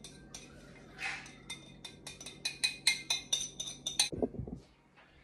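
Small glass jar clinking against kitchenware as dressing is drizzled out of it: scattered light glassy clinks, then a quick run of them from about two and a half seconds in.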